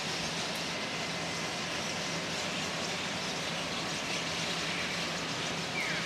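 Steady outdoor city street ambience: a continuous wash of traffic noise with no distinct events.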